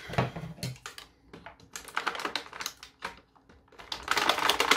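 Stiff clear plastic packaging tray crackling and clicking as an action figure is pried out of it: an irregular run of small clicks with short pauses, busiest and loudest near the end.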